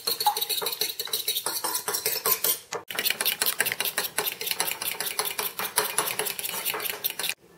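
A fork beating eggs in a bowl: a fast, steady run of clinks as the fork strikes the bowl. There is a brief break about three seconds in, and it stops abruptly just before the end.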